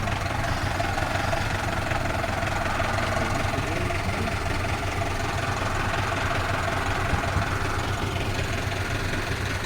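Engine of an off-road vehicle running steadily at low revs, a constant low hum with no change in pitch.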